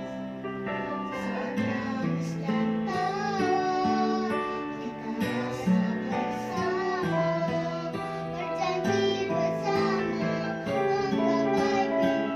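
Acoustic guitar strumming chords, with a voice singing a melody over it from about three seconds in, the held notes wavering with vibrato.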